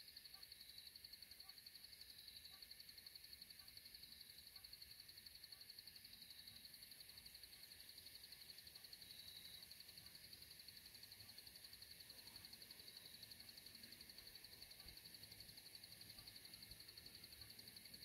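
Near silence: faint evening wildlife ambience. A steady, high-pitched trilling runs throughout, and through about the first half a soft short call repeats about twice a second.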